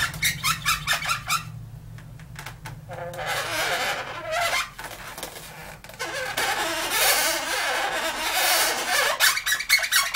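Black Sharpie marker squeaking and rubbing across an inflated Qualatex latex balloon while the eyes are drawn on. Quick short strokes come in the first second or so, and longer rubbing strokes come later.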